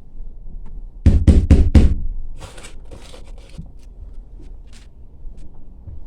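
Four quick, loud knocks about a second in, followed by scraping and handling noise with scattered small clicks.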